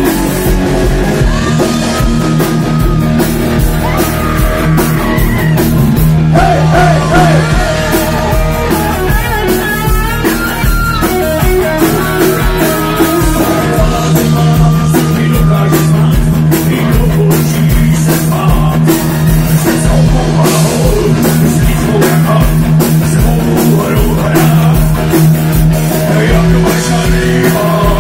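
Live rock band playing loud, with electric guitars, bass and drum kit. A lead melody line bends and glides in pitch above the band through the first half.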